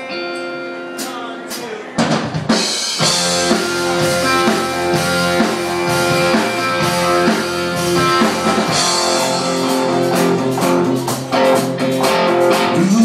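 Live band playing a song's instrumental intro on electric guitar, bass guitar and drum kit. Held guitar chords ring at first, and the drums and bass come in about two seconds in.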